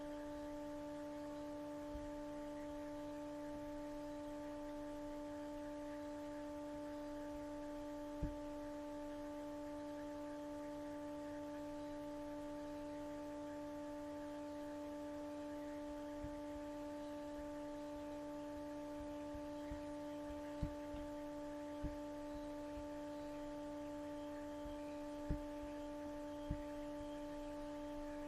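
A quiet, steady pitched hum with several overtones, unchanging throughout, with a handful of faint short clicks scattered through it.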